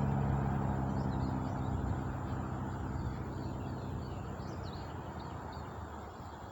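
Jet engine noise from a United Airlines Boeing 737 on its takeoff, a steady low hum and rush that fades gradually as the aircraft draws away. Birds chirp faintly in the background.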